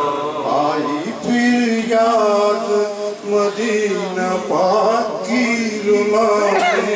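A man singing a naat, an Urdu devotional poem in praise of the Prophet, into a microphone, in long, wavering held notes.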